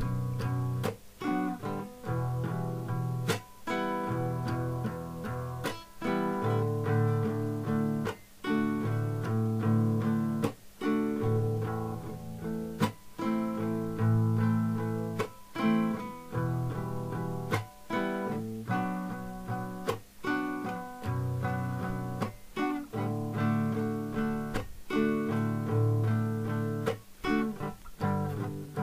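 Guitar strummed in the 6/8 Caucasian rhythm, a pattern of down-strokes broken by a muted chop and an up-stroke, with the chords changing as it goes. The muted chop cuts the sound short about every two and a half seconds.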